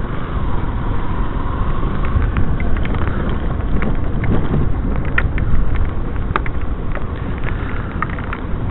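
Yamaha Crosser 150 motorcycle riding at speed: steady rushing wind noise on the microphone over the running engine, with scattered sharp ticks from about two seconds in, typical of raindrops starting to hit the camera.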